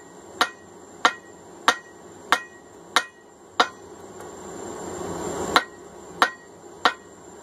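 Hand hammer striking a hot steel hammer head on an anvil, drawing out the diagonal peen: six evenly paced blows about two-thirds of a second apart, each with a short metallic ring, a pause of about two seconds, then three more blows.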